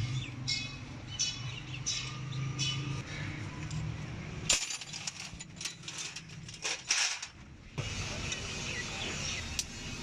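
Small birds chirping in short, repeated calls over a low steady hum. After a cut, a few sharp clicks and knocks of hand work on the engine.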